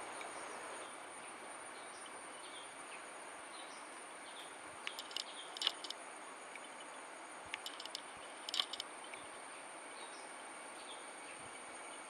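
Forest ambience: a steady high-pitched insect drone, like cicadas or crickets, over an even hiss. Two quick bursts of short, sharp bird calls break in, about five seconds and about eight seconds in.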